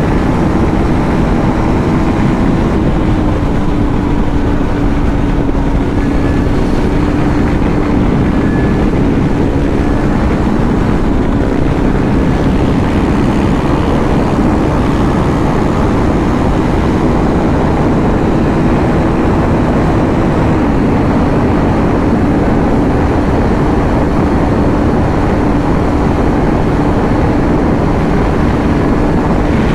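KTM RC 390 single-cylinder engine pulling at high speed in sixth gear, a steady drone heard from the rider's position with wind rush over it.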